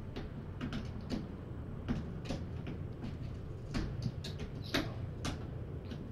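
A kitten clawing a cat scratcher: short scratchy strokes at irregular intervals over a low steady hum.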